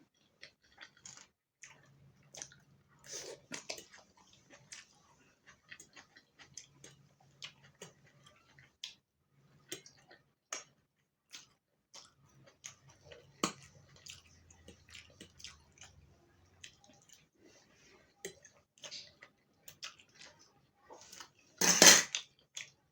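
Close-up eating sounds of a meal of chow mein, rice and chicken curry: wet chewing and small mouth clicks, with light taps and scrapes against the plate. About a second before the end there is one brief, much louder noise.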